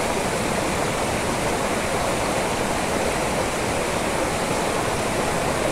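Steady rushing of water from the waterfall and its stream.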